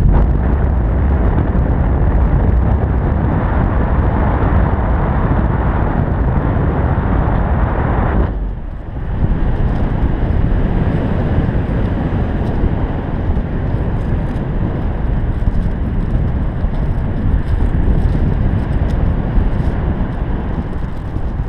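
Wind noise from the airflow buffeting a paraglider pilot's action-camera microphone in flight: a loud, steady, low rushing that drops away briefly about eight seconds in.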